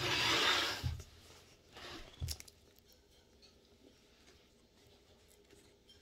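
A brief rustle close to the microphone in the first second, a light knock about two seconds in, then quiet room tone.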